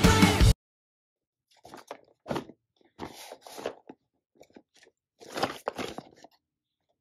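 Music cuts off abruptly about half a second in. Then a Beyblade Burst QuadStrike retail box is handled and turned over in the hands, with irregular crinkling and scraping of the card-and-plastic packaging, several short bursts with silent gaps.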